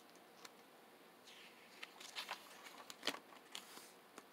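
Pages of a picture book being turned by hand: a soft paper rustle with a few small clicks and taps, the sharpest about three seconds in.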